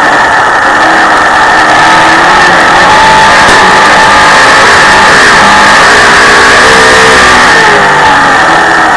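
Dirt modified race car's V8 engine heard loud from its onboard camera, its pitch rising and falling as the driver goes on and off the throttle through the turns.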